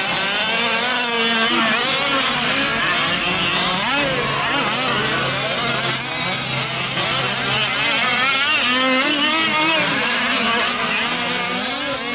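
Several 5th-scale gas RC trucks with small two-stroke engines racing together, their pitches rising and falling over and over as they throttle up and back off.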